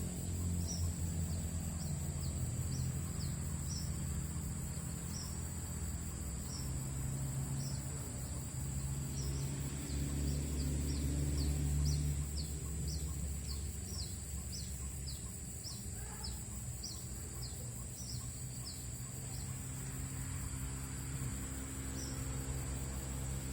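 Steady high-pitched insect drone of crickets or cicadas, with a long run of short, falling high chirps that come thickest in the middle, over a low steady rumble.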